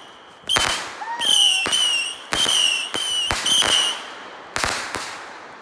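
Consumer fireworks going off: a high, wavering whistle that breaks off and starts again several times, cut through by a string of sharp bangs. The last bangs come just before the end.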